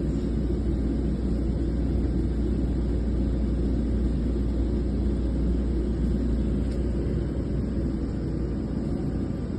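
Steady low machinery rumble that stays even throughout, with no distinct strokes or changes.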